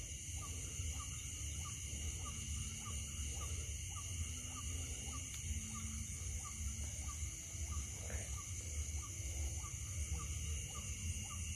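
Faint night chorus of calling animals: short piping notes repeating about three times a second, over a steady high-pitched insect drone.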